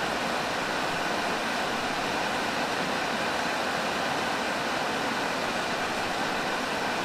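Engine oil being filled through a hose into an engine's oil filler neck: a steady rushing hiss that starts suddenly and holds even.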